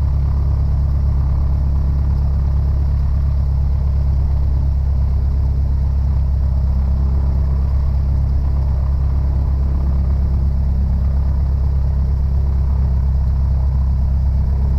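Cessna 172 Skyhawk's piston engine idling steadily in the cockpit, a constant low drone.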